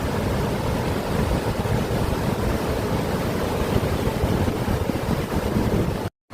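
Steady outdoor rushing noise, heaviest in the low end, broken by a brief dropout to dead silence near the end.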